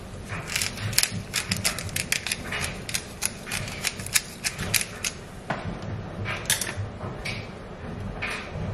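Hand-twisted spice grinder over a pan, rapid irregular clicking for about five seconds, then a few softer swishing and scraping sounds.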